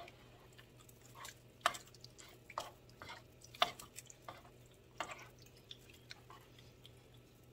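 Thick spaghetti sauce with meat and grated vegetables being stirred in a pot with a wooden spirtle: faint, irregular squelches and soft knocks against the pan, about one or two a second.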